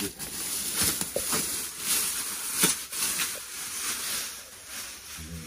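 Thin plastic wrapping rustling and crinkling in rough, irregular bursts as it is pulled off a newly unboxed recliner chair.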